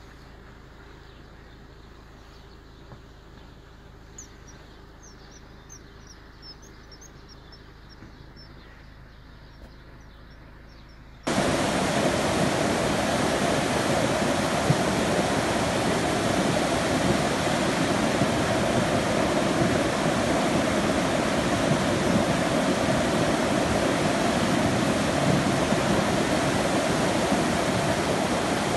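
Flash-flood torrent of muddy water rushing down a narrow stone channel: a loud, steady rush of churning water that starts abruptly about eleven seconds in. Before that, a much quieter, even wash of water with faint high chirps.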